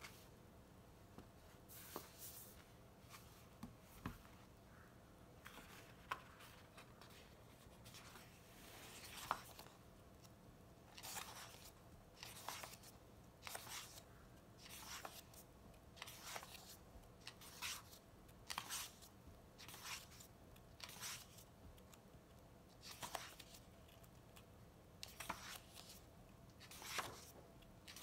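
Paperback coloring book's pages being turned by hand: faint papery swishes. At first there are only a few light taps and rustles; from about a third of the way in, a page turns roughly every second.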